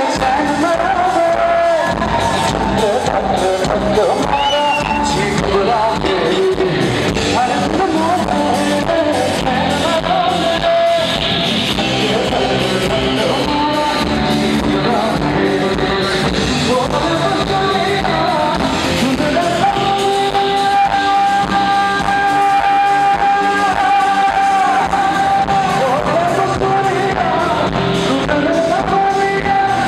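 Live band music with a male singer singing into a microphone over a PA, backed by electric guitar and a steady drum beat. Partway through he holds one long note.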